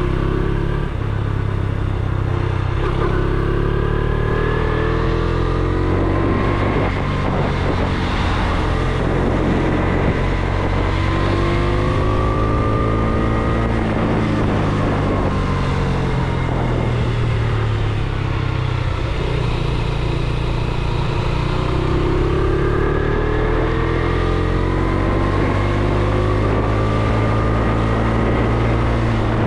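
Motorcycle engine running under way, its pitch rising several times as the rider accelerates and falling as he eases off, over a steady rush of wind and road noise.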